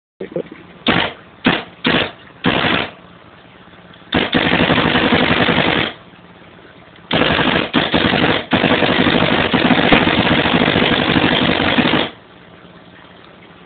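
Evil Omen 1.5 electropneumatic paintball marker firing: several short bursts, then two long strings of rapid shots lasting about two and five seconds. The marker keeps recocking itself and cycling, the sign that its recock pressure is now set correctly.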